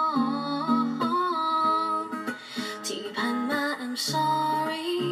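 A Thai pop ballad played back through a pair of Victor three-way speakers, with strummed guitar under a gliding female vocal melody.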